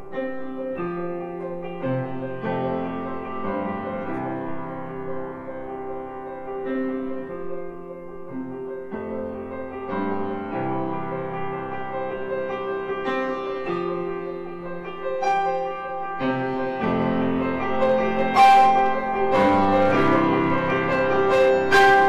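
Instrumental background music led by piano, its chords changing every second or so. A few sharp hits come in near the end, the loudest moments of the passage.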